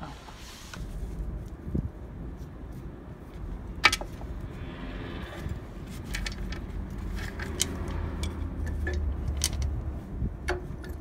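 Metal chain of a chain wrench rattling and clinking against a truck's wheel hub and studs, with one sharp clank about four seconds in, over a steady low rumble.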